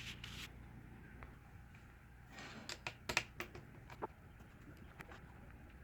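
Scattered small clicks and taps of a screwdriver working the small screws out of a laptop's bottom case, with a quick cluster about two and a half to three and a half seconds in and a few single ticks after.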